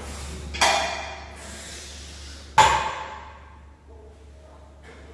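Heavily loaded deadlift barbell set back down on the gym floor: a clank of the weight plates about half a second in, then a louder metallic clank about two and a half seconds in that rings briefly.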